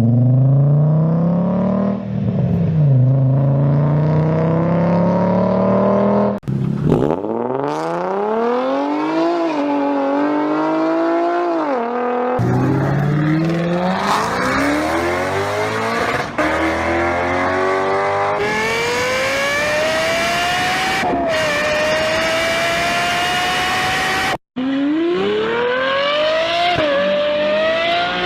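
A run of different V-type engines, one after another with abrupt cuts every few seconds, each revving hard: the pitch climbs under acceleration and drops back sharply at gear changes.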